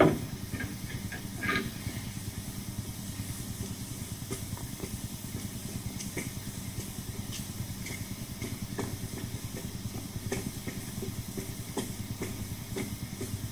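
Steady low hiss with a faint hum underneath and a few scattered faint clicks.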